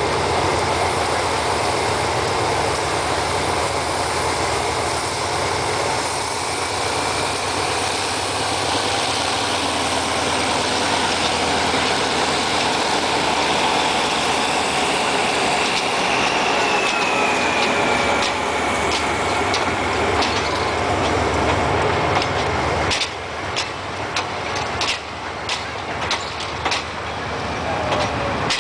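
SRT GEA-class diesel-electric locomotive pulling its train out, its diesel engine running under load as it passes close, with a high whine that glides down briefly about halfway. Near the end the passenger carriages roll by, their wheels clicking over the rail joints in repeated pairs.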